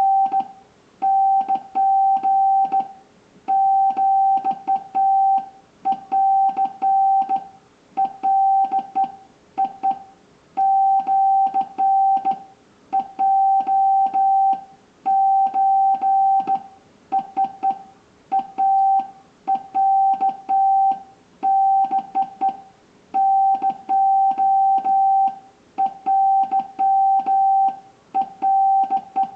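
Wabun (Japanese) Morse code sent by hand on a HI-MOUND HK-808 straight key: a steady single-pitched beep keyed on and off into short and long elements, with faint clicks from the key as it is pressed and released.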